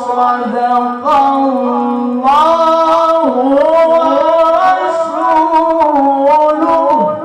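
A male Quran reciter's high voice in melodic tilawah, holding long ornamented notes that waver and glide. The pitch steps up about two seconds in.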